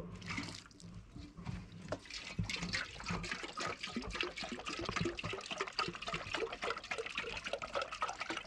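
Water splashing and trickling: a dense, irregular patter of small splashes.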